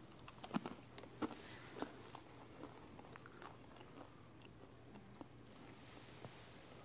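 Faint crunching and chewing of communion bread, a scatter of small sharp crunches in the first few seconds that thin out to an occasional tick.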